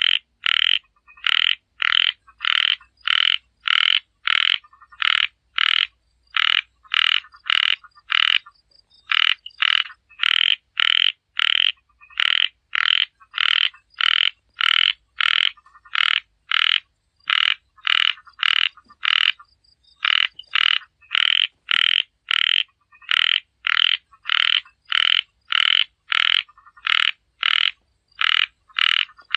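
A small frog (Thai khiat) calling over and over in short croaks, about two a second, with brief pauses about a third of the way in and again about two thirds in.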